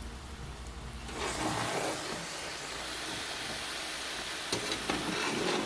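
Diced eggplant frying in hot oil in a large dark wok-like pan: a steady sizzle that starts about a second in, with a few sharp clicks near the end.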